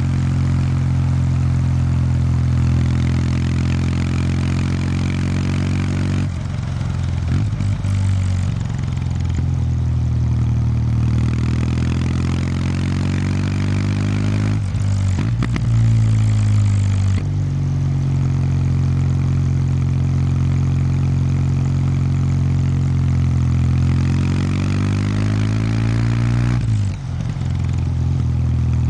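Kawasaki W800 Street's air-cooled parallel-twin engine running through its stock exhaust, ridden at low, fairly even revs. The note wavers and rises slowly, with brief dips about six, fifteen and twenty-seven seconds in, after which the pitch climbs again.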